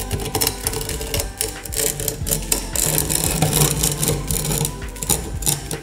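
Metal scraper scraping along a crack in rough floated cement render, a fast run of short rasping strokes, several a second, as the crack is opened out into a V.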